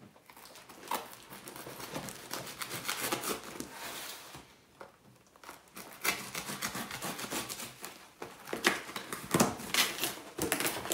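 A pocket knife slitting the packing tape along a cardboard box's seams in scratchy tearing strokes, with a short pause partway through. Near the end the cardboard flaps are pulled open with louder crackling.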